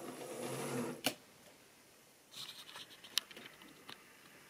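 Tri-ang model train rattling along the track for about a second, then a sharp clunk as it stops. Scattered small clicks and handling noises follow, with one more sharp click a little after three seconds.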